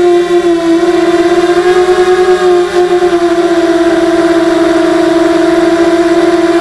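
Mini X260 quadcopter's four RCX 1804 2400KV brushless motors and 5x4 props whining in flight, heard through the onboard camera. The whine is steady, and its pitch dips and rises slightly as the throttle changes.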